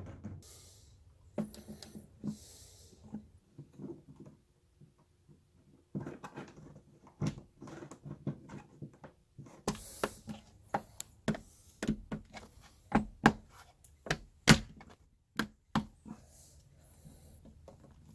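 Plastic electrical box being worked into a cut hole in wood siding by hand: rustling and scraping, then a quick run of sharp plastic clicks and knocks against the wall, thickest in the second half.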